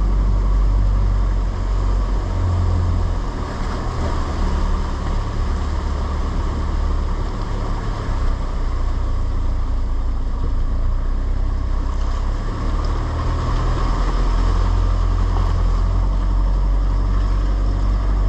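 Four-wheel drive's engine running at low revs as it crawls through a creek crossing, its note steady with the revs changing a few times.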